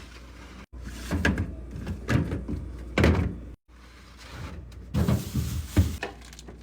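Food and containers being put into a refrigerator: a series of knocks, thuds and short sliding scrapes as items are set on shelves and bins and drawers are moved. The sound is broken twice by brief total silence.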